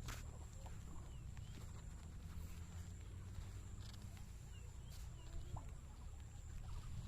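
Faint outdoor ambience: a few short bird chirps and small clicks over a low steady rumble.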